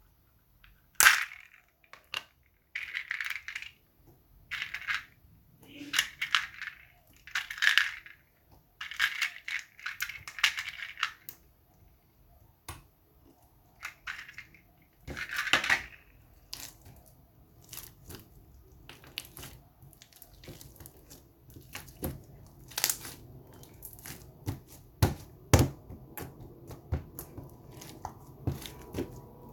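Slime with mixed-in toppings being squeezed and pressed by hand, making crunchy, crackling squishes in a dozen or so separate bursts. In the second half it turns into a string of short clicks and pops.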